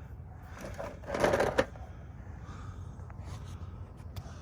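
Handling noise: a brief rustle and scrape about a second in, with a few faint clicks over a low background rumble.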